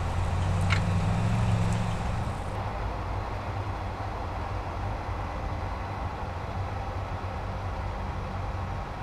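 2023 Chevrolet Colorado pickup's 2.7-litre turbocharged four-cylinder engine pulling as the truck drives on a dirt track, with tyre noise on the loose surface. The engine note is strongest in the first two seconds, then gives way to a steadier mix of engine and tyres.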